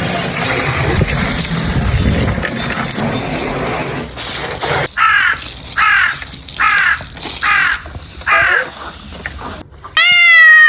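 A bird calls in a run of six short, harsh calls, evenly spaced a little under a second apart, after a few seconds of steady rustling noise; near the end a louder, longer drawn-out animal call begins.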